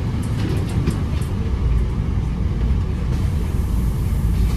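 Steady low rumble of a bus interior on the move, with a few faint rattling clicks about half a second to a second in.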